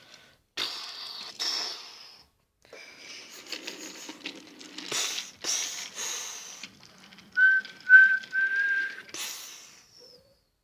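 A person making train noises by mouth: breathy hissing puffs, then three short whistled toots on one pitch about three quarters of the way through.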